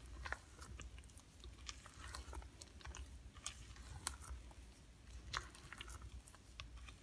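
Silicone spatula folding thick chocolate batter with whole berries in a stainless steel bowl: faint, irregular wet squelches and light scrapes.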